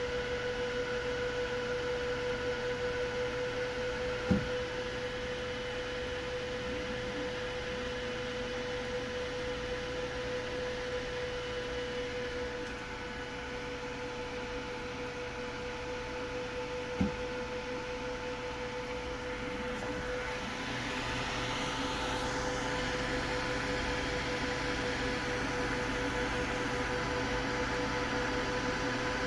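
Voxelab Proxima 8.9 Pro resin 3D printer running with a steady fan hum, broken twice by a sharp click about 13 seconds apart: the clicking noise the owner is recording.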